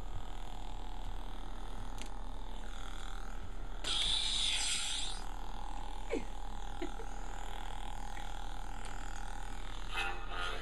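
Force FX lightsaber replica humming steadily, with a louder crackling hiss of its effect sound about four seconds in lasting about a second, and a shorter one near the end.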